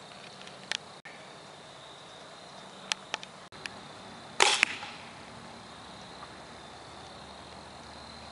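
An arrow from a homemade rubber-band arrow shooter strikes the archery target about four and a half seconds in, with two sharp hits close together. A few light clicks come before it.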